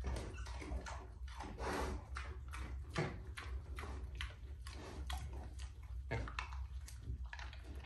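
Pig snuffling and chewing treats with her snout to the floor: a quick run of short sniffs and crunches.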